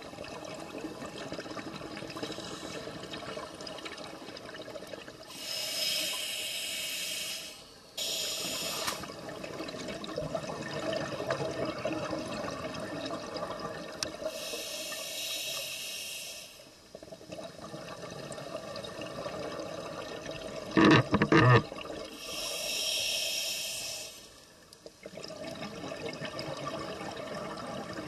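Scuba diver breathing through a regulator underwater: a high hiss with each breath, three times about eight seconds apart, and bubbling, gurgling exhalations in between. A brief cluster of loud knocks comes about three quarters of the way through.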